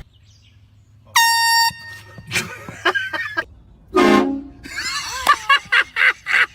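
An air horn blasts once, a sudden high, brassy honk lasting about half a second, starting about a second in. A loud cry follows a few seconds later, then excited, agitated voices.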